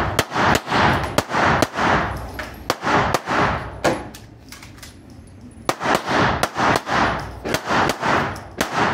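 Semi-automatic pistol fired in rapid strings during a timed action-pistol stage: about seven quick shots, a pause of roughly two seconds, then about eight more.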